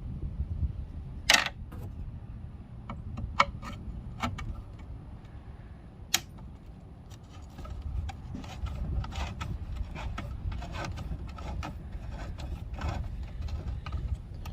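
Small clicks and taps of hand tools working on a car armrest being taken apart: a few sharp clicks, then a quicker run of light ticks from about halfway through, over a steady low background rumble.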